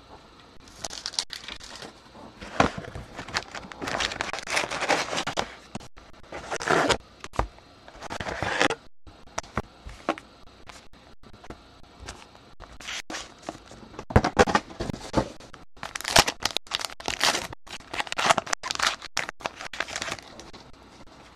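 Trading-card pack wrappers being handled and torn open, crinkling and tearing in irregular bursts with quieter gaps between.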